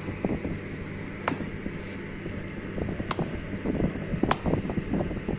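Motorcycle boot buckle being worked by hand: three sharp clicks a second or two apart over rustling handling noise, with a steady fan hum behind.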